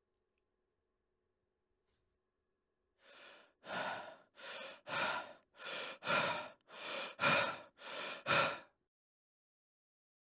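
A man breathing heavily and rapidly, about ten quick breaths in and out over some five seconds, growing louder, then stopping abruptly. Before the breathing begins there is near silence with a faint steady hum.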